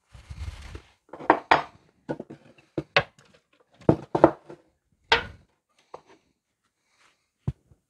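Shop towel rustling, then a run of sharp clacks and knocks: a steel knife blade and a metal can being handled and set down on a wooden workbench.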